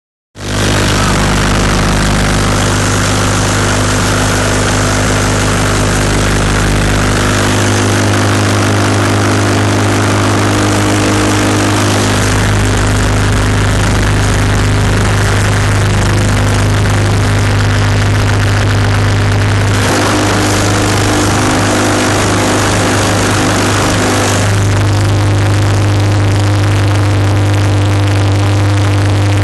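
Sawdust dispenser machinery running: a loud, steady mechanical drone with a strong low hum over a rushing noise, its tone shifting a few times along the way.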